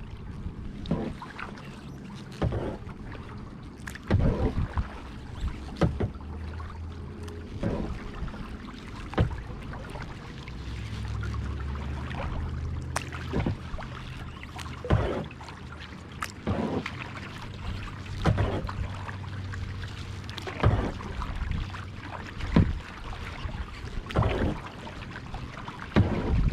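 Kayak paddle strokes dipping and splashing in lake water, alternating sides about every one and a half to two seconds, with a pause of a few seconds partway through. A low rumble rises through the middle stretch and fades toward the end.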